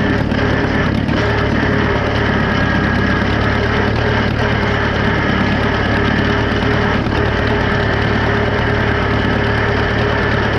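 Farmall F-20 tractor's four-cylinder engine running at a steady speed while pulling a hay rake.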